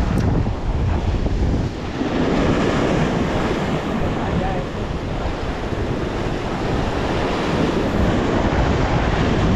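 Surf breaking and washing over the rocks of a jetty, with strong wind buffeting the microphone in a steady low rumble.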